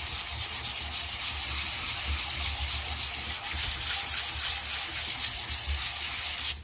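500-grit sandpaper rubbed dry by hand over a plastic motocross number plate in quick back-and-forth strokes, giving a steady scratchy hiss. This is the finer-grit stage that erases the scratches left by the coarser paper.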